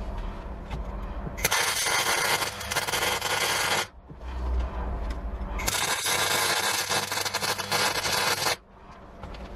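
MIG welder welding a crack in a steel axe head: two long bursts of steady crackling and hissing from the arc, the first about two and a half seconds, the second about three, with a low hum in the pause between and after them.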